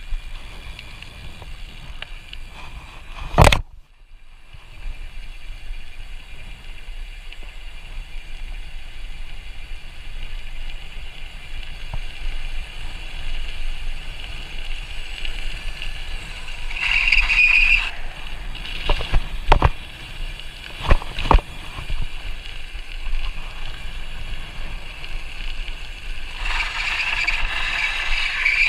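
Kick scooter rolling fast down a steep paved hill: a steady rush of wheels on asphalt with wind on the microphone. A loud knock comes about three and a half seconds in, and a few sharper knocks follow past the middle.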